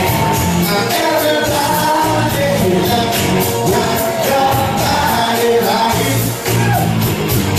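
Loud music with a singer's voice over a steady beat, from a singer on a microphone with backing music.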